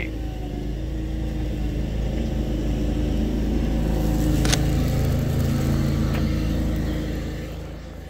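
A motor vehicle's engine rumbling close by on a snowy street, swelling slowly and then fading away near the end. A single sharp click comes about four and a half seconds in.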